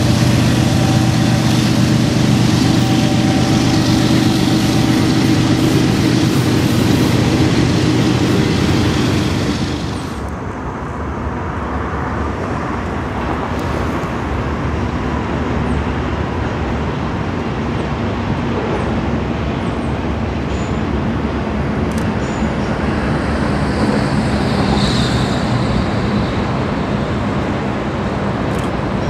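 Diesel freight locomotives running loudly, then a train of freight cars rolling past with a steady rumble once the engines have gone by, about a third of the way in.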